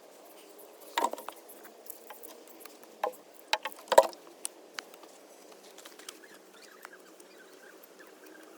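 A few sharp clicks and knocks of hard objects being handled and set down, the loudest about four seconds in, then lighter ticks over a faint steady hum.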